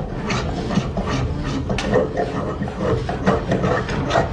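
Hand tool scraping and rasping along a wooden musket stock in short, irregular strokes, with scattered knocks of other bench work.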